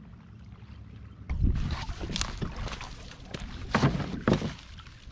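A kayak being dragged up onto the shore by its handle: the hull scrapes and knocks over the ground and dry leaves, with the loudest knocks near the end, over a low wind rumble on the microphone.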